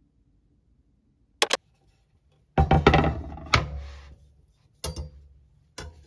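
A single sharp click, then a wooden cutting board set down and shifted on a kitchen countertop with a cluster of knocks and scraping. Near the end a kitchen knife is laid on the board with two light knocks.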